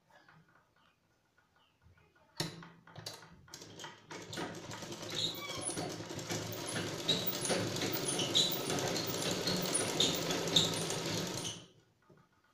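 Domestic sewing machine: a few clicks, then it runs steadily for about eight seconds, the needle stitching in rapid even strokes over a low hum, and it stops suddenly near the end.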